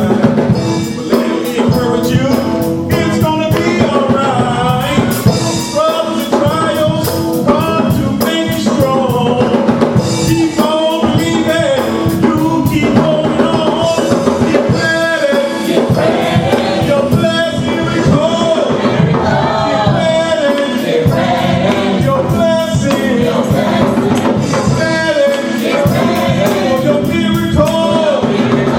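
Live gospel music: voices singing over a band with a steady drum and percussion beat.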